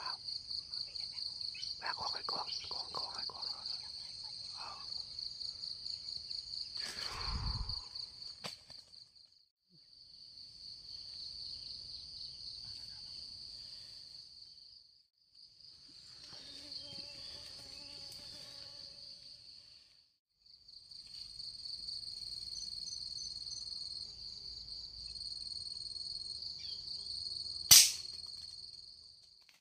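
Insects in a steady high-pitched shrill that cuts off and restarts a few times. Near the end comes one loud, sharp crack: a shot fired into the treetop.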